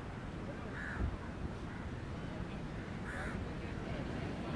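A crow cawing twice, about two seconds apart, over a steady background noise.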